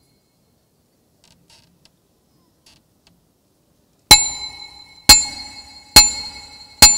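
A bell struck four times, about a second apart, after some four seconds of near silence; each strike rings on and fades.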